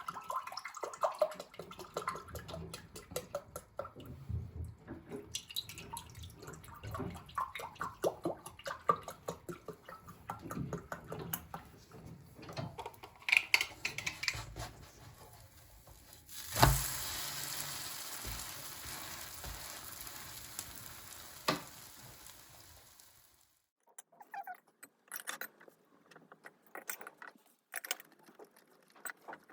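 Kitchen handling sounds while breakfast is made: many light clinks and knocks of dishes and utensils, then a steady hiss that starts suddenly just past halfway, fades over about seven seconds and stops, with a few faint clicks after.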